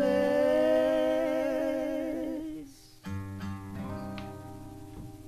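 A singer holds the song's last sung note with vibrato over acoustic guitar. About three seconds in, the guitar strikes a final chord that rings and fades out, ending the song.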